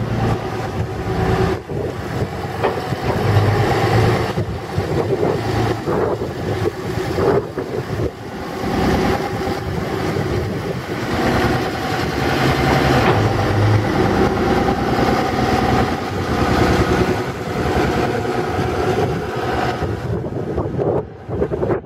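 A JSW Nikko BH45 tracked excavator's engine runs continuously while the boom and bucket are worked, its level rising and falling as the machine is loaded.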